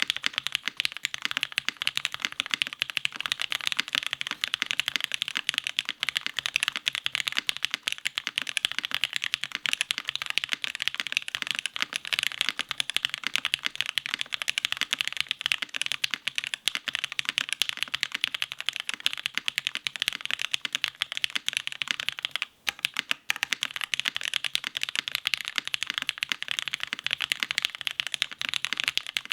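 Continuous fast typing on a custom mechanical keyboard: a Monokei x Hand Engineering Kage with lubed, filmed Gateron Irene switches, a flex-cut carbon fibre plate on a gummy O-ring mount, and GMK keycaps. The key clicks are dense and steady, with a brief pause about 22 seconds in.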